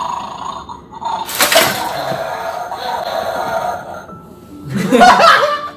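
Electronic toy bulldog from a wake-the-dog bone-stealing game waking up with a sudden loud sound effect about a second in, which means the player has lost the round. A second loud outburst comes near the end.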